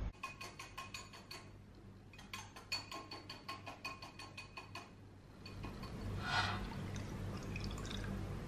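A utensil beating dalgona coffee foam in a bowl, clicking against the bowl in a fast run of about six ringing strikes a second, with one short pause. About five seconds in, milk pours into a glass over ice cubes.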